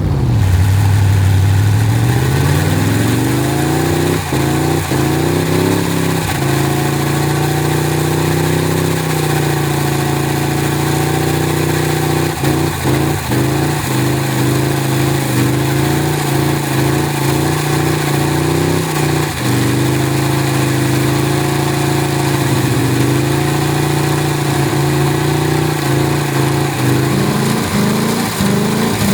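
Holden 253 cubic inch V8 with a Crane camshaft and four-barrel carburettor, running in a John Deere ride-on mower. The revs climb in the first few seconds and hold steady, ease off a little past the middle and rise again near the end, with a few short sharp pops along the way.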